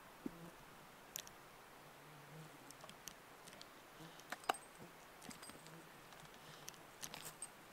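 Very quiet, with sparse faint clicks and light ticks; a sharper click about four and a half seconds in and a short cluster of ticks near the end.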